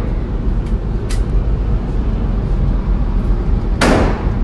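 One loud semi-automatic pistol shot in an indoor shooting range near the end, with a fainter crack about a second in, over a steady low rumble.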